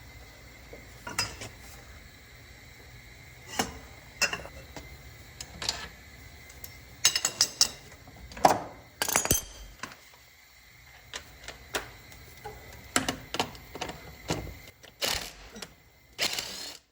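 Hand tools and metal engine parts clinking and clanking at irregular intervals while the crank pulley bolt is worked loose on a Honda engine, with a few rattles and a longer scrape near the end.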